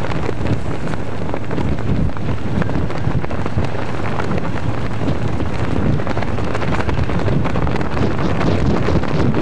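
Strong wind buffeting a camcorder microphone on the water: a steady, heavy rushing noise, strongest in the low end.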